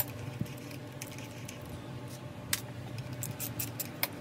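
Scattered sharp metallic clicks and clinks of a socket wrench with an extension working the housing bolts of a starter motor held in a vise: one near the start, one about two and a half seconds in and one just before the end, with lighter ticks between, over a steady low hum.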